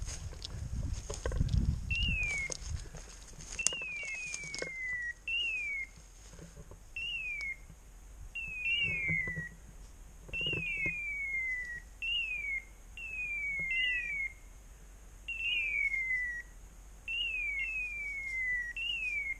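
Hunting dog's electronic beeper collar sounding a repeated falling chirp, one or two chirps about every second and a half, starting about two seconds in. Brush rustles underfoot at the start.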